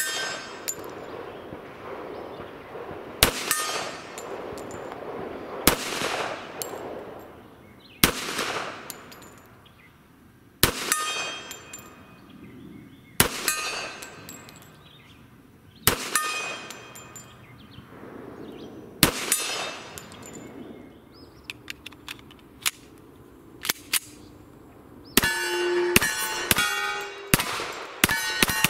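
Colt Gold Cup Trophy 1911 .45 ACP pistol fired at steel targets: seven slow aimed shots about two and a half to three seconds apart, each followed by the ring of the struck steel plate. Near the end comes a quicker string of shots, the steel plates ringing at several pitches.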